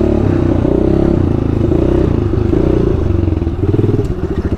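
Engine of a 110cc clutch-shift pit bike running under way. It holds a fairly steady note, and the pitch rises and falls near the end as the throttle changes.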